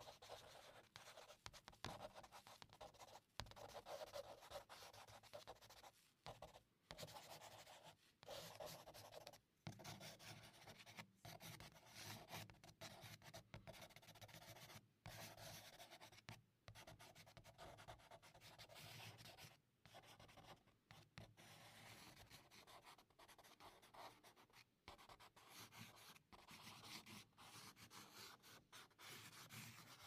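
Charcoal drawing on paper: faint, irregular scratching and rubbing strokes in quick succession, broken by many brief pauses.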